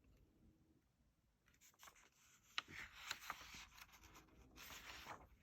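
Near silence, then from about halfway in a faint paper rustle with a few soft clicks: a picture-book page being turned.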